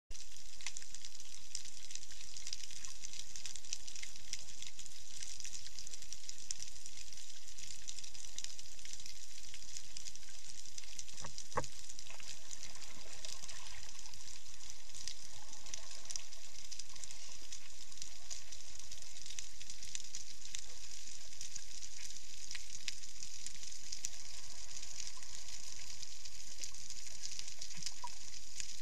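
Underwater ambience picked up by a camera in its waterproof housing: a steady crackling hiss, with one sharper click about eleven and a half seconds in.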